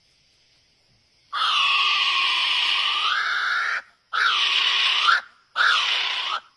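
A bird giving three long, harsh, noisy calls, starting about a second in. The first lasts about two and a half seconds and the next two about a second each.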